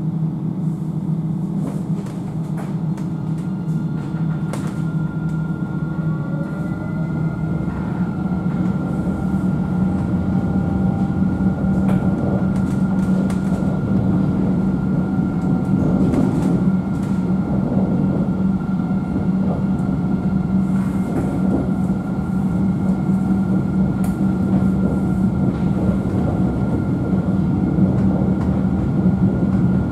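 Alstom Citadis tram heard from inside the passenger cabin as it pulls away and runs along street track. There is a steady low hum and a rising motor whine over the first several seconds as it gathers speed, with scattered clicks from the wheels on the rails.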